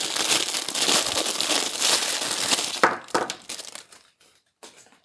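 Packaging crinkling steadily as it is handled, stopping a little under three seconds in with a sharp click, then a few fainter rustles and clicks.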